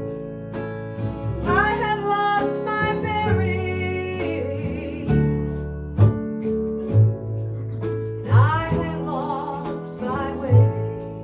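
Live band playing a song: a woman sings two phrases with wavering, drawn-out notes over bass, guitar and regular drum hits.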